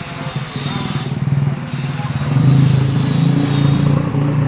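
Dongfeng single-cylinder diesel engine of a mini tractor running under load, its firing steady and getting louder about halfway through.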